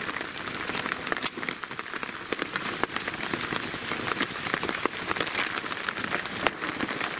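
Steady rain falling, an even hiss with many sharp drop ticks close by.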